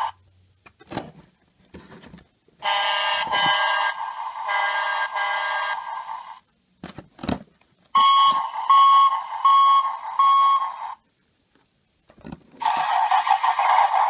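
Electronic sound effects from a Tonka toy pickup truck's small speaker, set off by clicks of the push button on its roof light bar. One effect plays for about three and a half seconds. Later comes a row of four even beeps, like an alarm, and another effect starts near the end.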